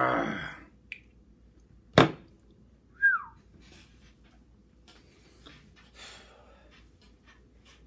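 A man's straining groan trails off as he gives up squeezing a heavy hand gripper. About two seconds in comes one sharp, loud knock, the steel gripper set down on the wooden table. A second later there is a short high tone that falls in pitch, then only faint rustling and breathing.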